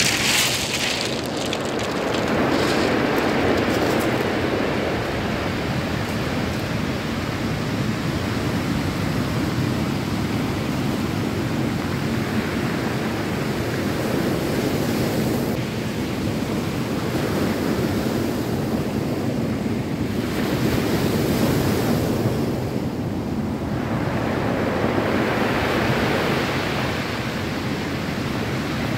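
Heavy surf breaking and washing up a pebble beach: a steady rush of water that swells louder now and then as waves break.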